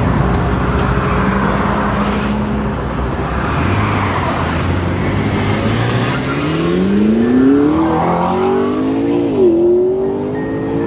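Lamborghini accelerating hard past the roadside, its engine note climbing steeply, dropping sharply at an upshift about nine and a half seconds in, then climbing again.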